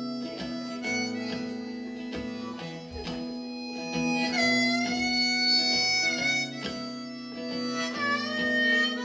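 Harmonica playing the melody of a folk song's intro, with bent notes sliding up in pitch about halfway through and again near the end, over strummed acoustic guitar and banjo.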